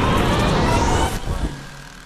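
Bass boat running at speed: outboard motor with rushing wind and water, with a rising whine. It cuts off suddenly about one and a half seconds in, leaving a much quieter steady tone.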